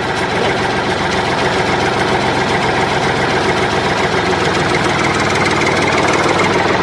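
Tractor engine running steadily at idle, an even low hum with a rattle.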